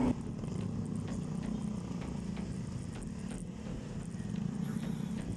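Low, steady engine rumble of traffic close by, with faint regular ticks over it.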